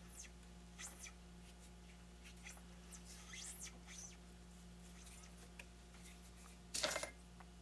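Faint scratching of sandpaper rubbed by hand over a mild steel part held in a lathe chuck, in short irregular strokes over a low steady hum. A louder scrape comes near the end.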